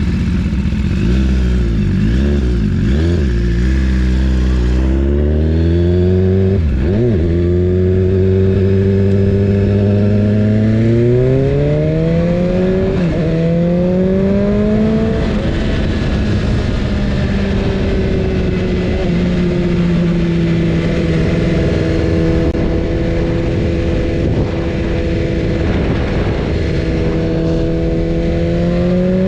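BMW S1000RR's inline-four engine pulling up through the gears, its pitch climbing with short breaks at the upshifts about 7, 13 and 15 seconds in, then settling into a steady cruise with the pitch slowly easing. A steady rushing noise runs underneath.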